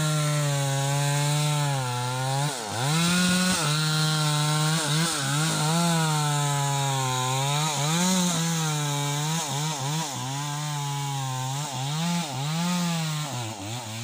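Two-stroke chainsaw cutting into the base of a teak trunk at full throttle. Its engine note drops each time it bogs under load in the cut and rises again as the load eases, over and over. Near the end the engine winds down.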